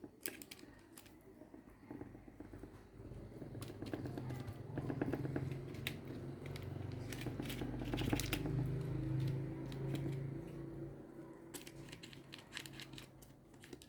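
Hands working soft, buttered msemen dough on a tray, folding the edges underneath: scattered small sticky clicks and crinkles. A low hum runs under the middle of it.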